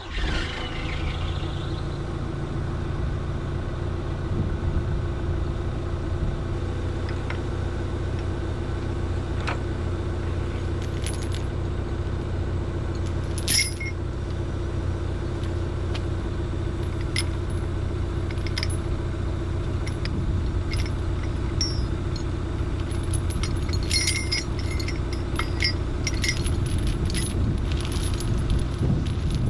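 Excavator diesel engine idling steadily, with a steel tow chain clinking and rattling as it is handled and dragged. There is a sharp clank about halfway through and another run of clinks near the end.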